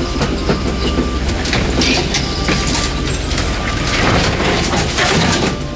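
Truck driving along a rough dirt road, its body rattling and clanking over a steady low engine drone.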